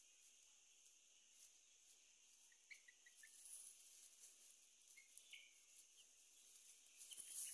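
Faint, thin peeps of a young chick, a few short calls about three, five and seven seconds in, over a steady high hiss, with a short rustle near the end.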